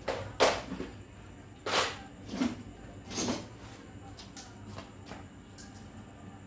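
Hand tools clattering and knocking as a plastic toolbox is rummaged through: four loud knocks and rattles in the first three and a half seconds, then a few lighter clicks, over a steady low hum.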